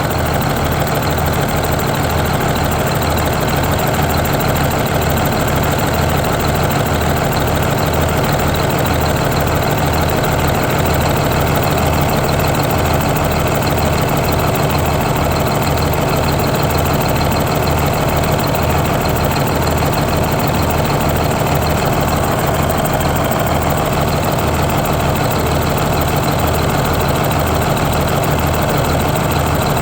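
GM New Look bus diesel engine idling steadily with a regular low pulsing, run at idle so the alternator's charging voltage can be checked.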